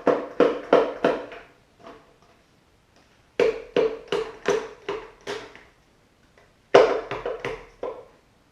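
Hammer blows on metal in quick succession, each with a ringing tone. There are three bursts, of about four, seven and five strikes, at roughly three strikes a second.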